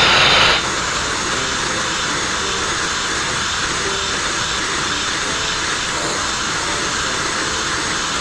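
Sandblasting nozzle blasting abrasive onto the narrowboat's steel hull to strip its hard two-pack epoxy coating: a loud, steady hiss that drops in level about half a second in, then holds.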